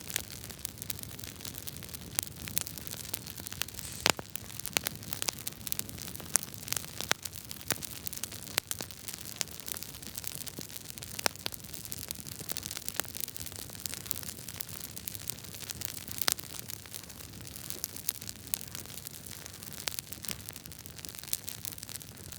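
Wood fire crackling in a fireplace: irregular sharp pops and snaps over a steady hiss.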